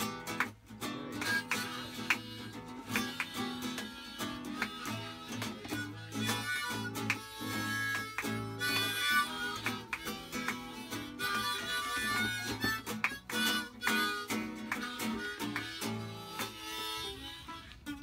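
Background music: acoustic guitar with harmonica.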